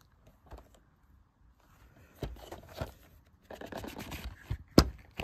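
Cardboard and plastic packaging of a Blu-ray box set being handled: scraping and rubbing with a few knocks, starting about two seconds in, and a sharp click near the end.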